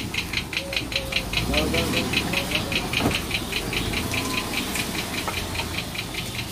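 A rapid, even ticking, about six ticks a second, over a low rumble, with faint voices in the background.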